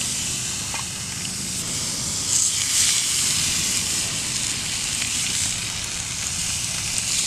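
Lingcod fillets frying in a hot pan on a portable camp stove: a steady sizzle.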